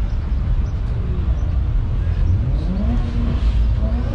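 Car engine running with a heavy low rumble, rising in pitch briefly about two and a half seconds in.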